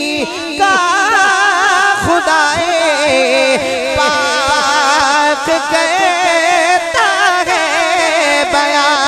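A man singing a devotional Urdu verse in long, melismatic phrases, his voice wavering with a strong vibrato as the melody winds up and down, broken by short breaths.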